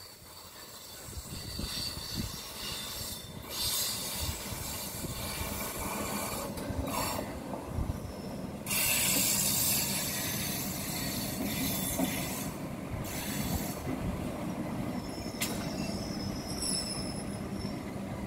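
Eastern Railway EMU local train passing at speed, its wheels running on the rails in a steady rush that builds over the first few seconds. A few short high-pitched wheel squeals come near the end.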